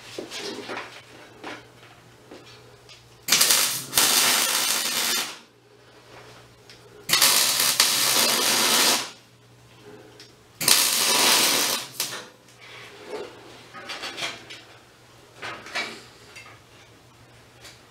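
Electric arc welding on a steel tube frame: three short welds, each a steady crackling hiss lasting one and a half to two seconds, with light knocks from handling the metal between them.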